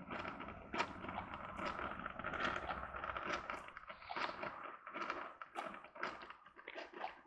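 Cuisinart drip coffee maker brewing, its heater sputtering and gurgling as it pushes hot water up to the basket, an irregular crackle. A low hum underneath drops out about two-thirds of the way through. The machine is working again after a new thermal fuse was fitted.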